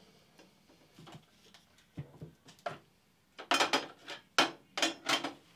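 Small items being set into a steel tool chest's top compartment, clinking and knocking against the metal: a few light clicks at first, then a quick run of sharper clattering knocks in the second half.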